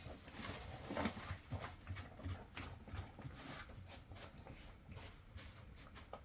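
Faint, irregular light knocks and clicks with some rustling, as of objects being handled.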